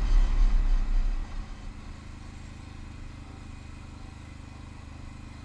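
ATV engine running steadily as it travels along a gravel trail. A heavy low rumble fills about the first second, then the sound settles to an even engine drone.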